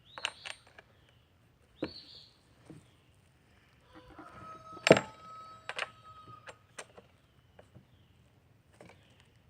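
Scattered metal clicks and clinks of a wrench on a chainsaw's bar nuts and bar as the chain tension is set. About five seconds in comes one sharper metallic strike that rings on briefly.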